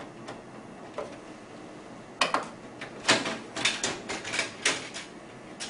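A printer's plastic top cover being worked loose and lifted off by hand: a quick run of clicks and rattles of plastic parts, starting about two seconds in.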